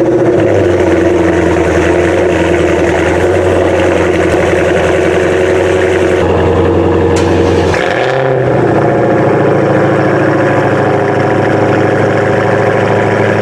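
Dodge Challenger Hellcat's supercharged V8 running steadily, with a drop in engine pitch about eight seconds in.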